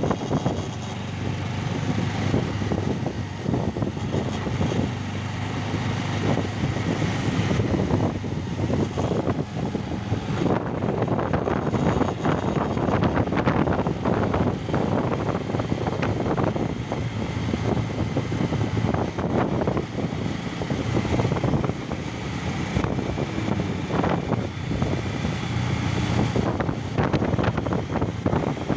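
Motorcycle engine running while riding, mixed with wind buffeting the microphone.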